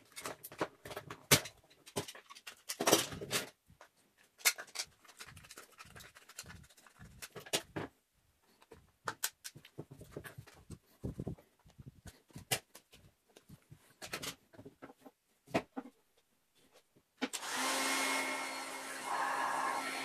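Knocks, clicks and short scrapes of plastic being handled as a plastic bottle neck is trimmed with a knife and pushed onto a vacuum hose joint. About 17 seconds in, a heat gun switches on and runs with a steady blowing hum, heating the plastic-bottle sleeve to shrink it onto the joint.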